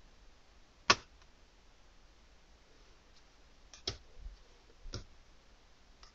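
Sharp plastic clicks from a DVD box set's clear disc trays and discs being handled: one loud snap about a second in, then a few softer clicks and knocks near four and five seconds in.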